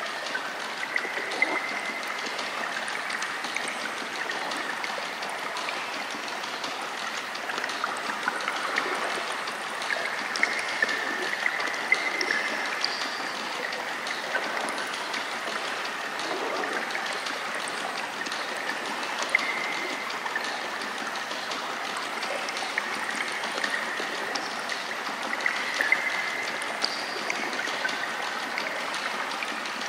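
Stream water running steadily, with scattered brief louder splashes.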